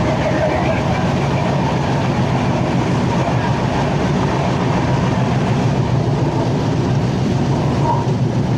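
A train running on the rails: a loud, steady rumble and rattle of wheels and coaches.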